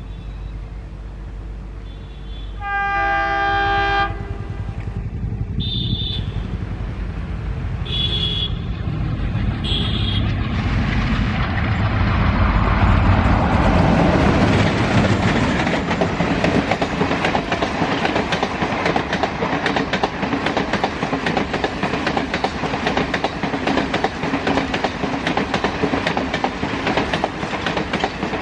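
Indian Railways diesel-hauled express train approaching with a low engine rumble, sounding its horn in one long blast and then three short toots. About eleven seconds in, the train passes close by, wheels clattering rapidly over the rail joints until the end.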